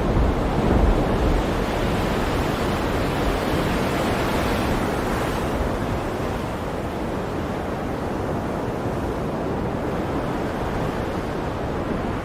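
Storm at sea: waves surging and breaking under strong wind, a steady dense rush with a brief swell about a second in.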